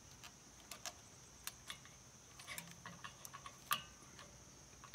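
Faint, scattered small metal clicks and ticks as a throttle linkage rod and its long return spring are worked into a small-engine carburetor's throttle lever, with the sharpest click about three-quarters of the way through.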